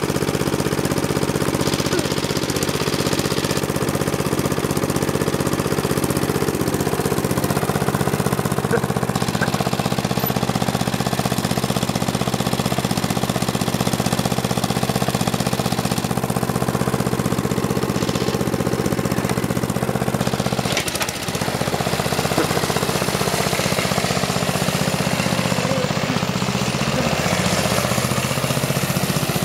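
Snapper rear-engine riding mower's small single-cylinder engine running steadily with a rapid, hard-edged beat. It drops out briefly about two-thirds of the way through, and near the end its speed rises and falls as the mower is driven.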